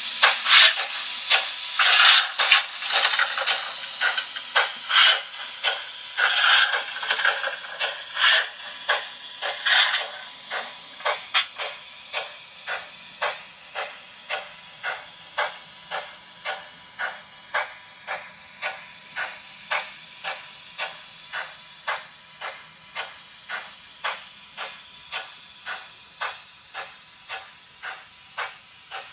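Märklin H0 model steam locomotive's sound effect: evenly paced steam chuffs, a little under two a second, loud at first and growing fainter, over a faint low rumble of the train rolling on the track.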